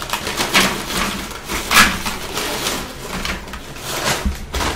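Brown paper takeout bag rattling as it is handled: a run of irregular crackles, the loudest about two seconds in.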